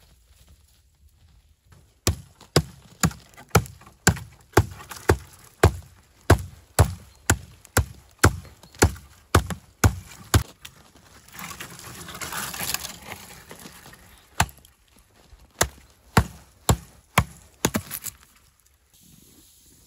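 Hatchet chopping a thin tree trunk: sharp blows about two a second for some eight seconds, a few seconds of rougher noise, then another run of blows.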